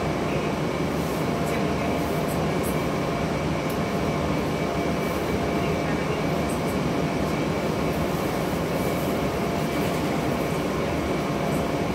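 R160 subway car running through a tunnel, heard from inside the car: a steady, even rumble of wheels on rail and running gear, with a faint steady whine and a few light ticks.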